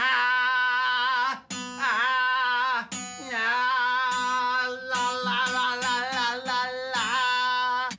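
A man singing long held notes with a wavering vibrato on one pitch while strumming an acoustic guitar, a strum starting each held note. In the last few seconds the guitar strums come quickly, about three a second, under the voice.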